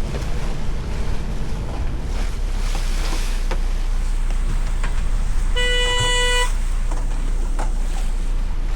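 A boat's engine runs steadily, a low rumble under wind and water noise. About halfway through, a single horn toot sounds once and lasts about a second.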